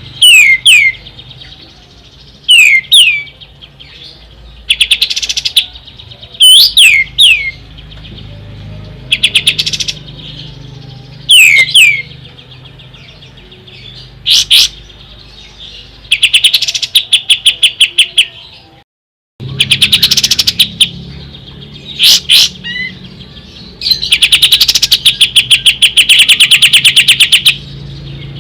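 Kapas tembak songbird calling: short phrases of sharp, falling whistled notes repeated every couple of seconds, then bursts of rapid chattering trills, the longest running about three seconds near the end. A low steady hum lies under it.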